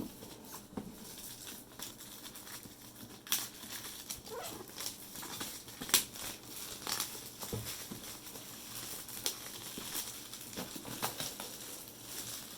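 A cardboard product box and its packaging being opened and handled: rustling and scraping with scattered sharp taps and clicks.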